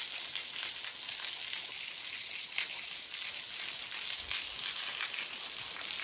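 A small waterfall of thin streams falling from a sandstone overhang and splashing onto rock below: a steady hiss with a light patter of drops.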